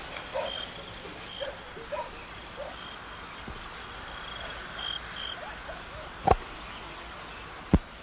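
Outdoor ambience with short animal calls now and then and a thin high tone coming in short dashes. Two sharp knocks stand out, one a little after six seconds in and one near the end.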